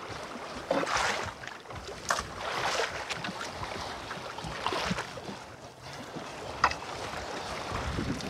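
Sea water washing and slapping against the hull of a small fishing boat in irregular swells, with a brief sharp slap about six and a half seconds in.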